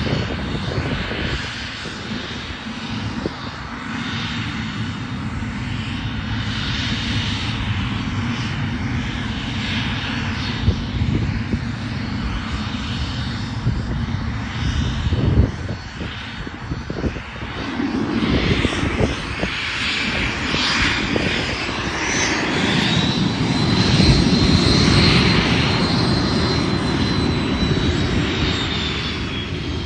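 A small jet's engines running, growing louder about two-thirds of the way through, with a high whine that comes in, holds, then falls in pitch near the end.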